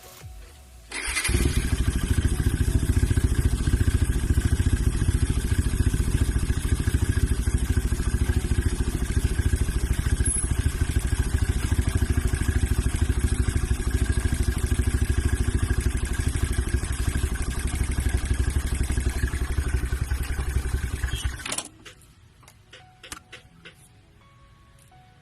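Suzuki Raider 150's single-cylinder four-stroke engine running steadily with a fast, even exhaust pulse. It comes in abruptly about a second in and cuts off sharply near the end, leaving only faint ticks.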